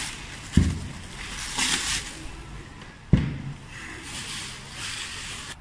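Bubble wrap and plastic film crinkling and rustling as they are pulled off a machine, with two low thumps, one about half a second in and one about three seconds in.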